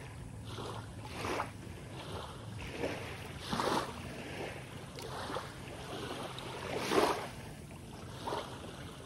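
A pit bull wading and swimming in shallow river water after fish, making irregular splashes every second or so.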